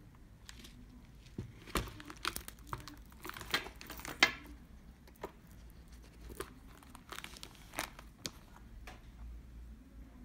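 Hands handling a black caviar-leather Chanel flap bag: irregular rustling and crinkling with scattered sharp clicks, the loudest about two and four seconds in, as the silver CC turn-lock is worked and the flap opened.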